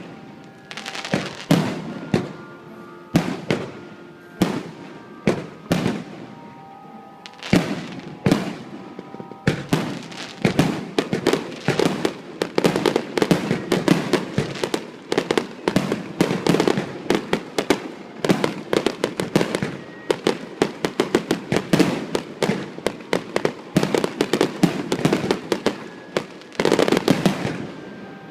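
Fireworks display: separate loud bangs a second or two apart, then from about ten seconds in a dense, rapid barrage of bursts and crackling, with music playing underneath.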